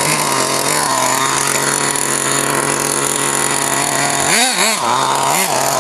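A nitro RC buggy's small glow engine idles steadily, then is blipped three times near the end, its pitch rising and falling with each blip of the throttle.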